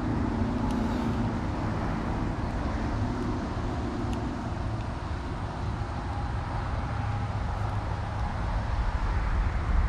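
A steady low rumble of distant road traffic.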